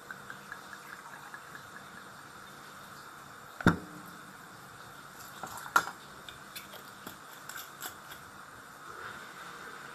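Coconut rum glugging from a bottle into a stainless-steel jigger in a quick run of small ticks, then two sharp knocks as bottle and jigger are set down on the counter, and a short pour of rum from the jigger over ice into a plastic shaker cup.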